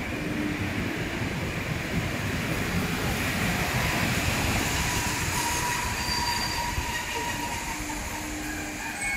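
PKP Intercity passenger coaches rolling past along a station platform, a steady wheel-on-rail rumble, with brief thin wheel squeals in the second half.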